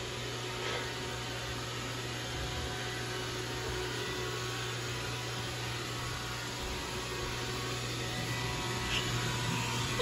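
iRobot Roomba robot vacuum running across a hardwood floor: a steady, even hum of its motor and brushes.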